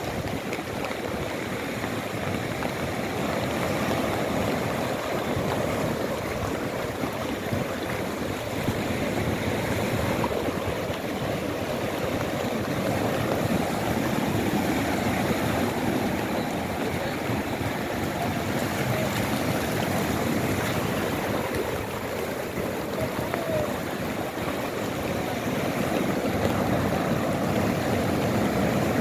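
Sea surf: waves breaking and washing up a sandy beach as a steady rush of water that swells and eases every several seconds, a little louder near the end.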